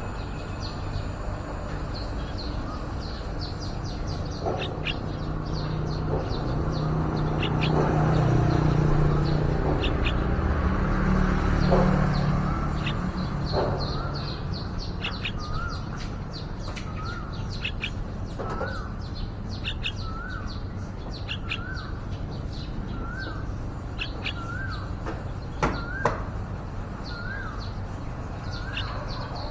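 Yellow-vented bulbuls calling: rapid high chirps throughout, and from about halfway a short upturned note repeated about every second and a half. A low rumble swells in the first half, and two sharp knocks come near the end.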